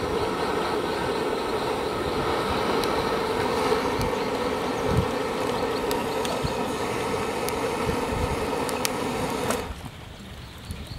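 A loud, steady drone that cuts off suddenly near the end, with a few sharp knocks of a cleaver chopping raw chicken on a wooden chopping block.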